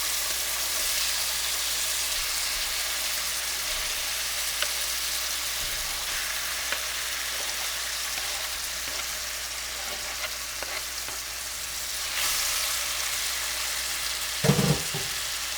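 Pieces of chicken thigh sizzling steadily as they fry in browned butter and olive oil, with a few light ticks. A short low knock comes near the end.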